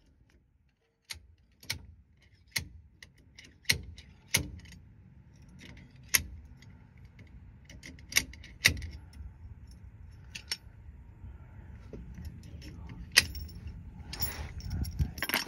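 A slide hammer striking metal on metal: about ten sharp, irregularly spaced clanks as the weight is slammed back to pull the pinion nut retainer out of a rear axle by two bolts threaded into it.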